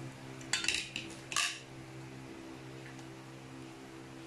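Raw chicken pieces tipped from a plastic colander into a stainless steel bowl: two brief clattering scrapes within the first second and a half, then only a steady low hum.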